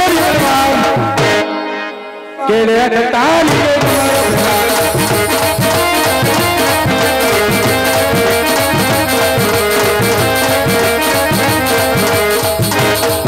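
Live traditional Indian folk music: held melody notes over a steady drum rhythm. It drops away briefly about two seconds in, then comes back at full strength.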